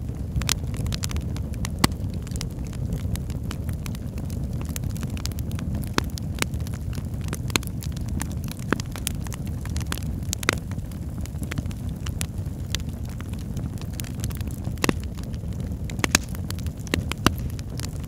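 Fireplace ambience: a wood fire crackling, with a steady low rumble of burning and irregular sharp pops, about one or two a second.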